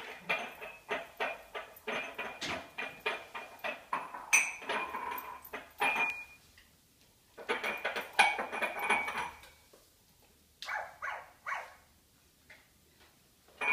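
A dog licking the dishes in an open dishwasher, plates and cutlery clinking and rattling in quick runs of about four or five clicks a second, with the odd ringing ping. The clinking stops briefly about six seconds in and thins to a few scattered knocks near the end.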